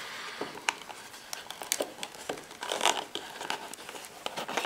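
A small cardboard box being opened and handled by hand: rustling and crinkling of packaging with scattered light clicks and taps, and a louder scraping rustle about three seconds in.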